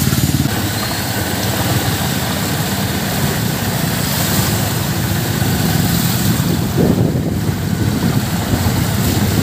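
Motorcycle engine of a tricycle running steadily, heard from close by in the sidecar as it rides through shallow floodwater, with a constant rushing hiss over it.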